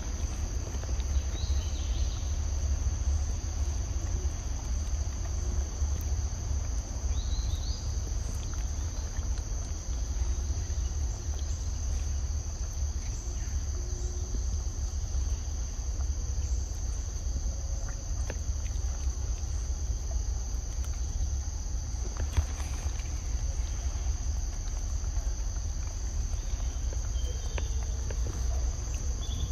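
Steady high-pitched drone of forest insects, over a constant low rumble, with a few faint short chirps.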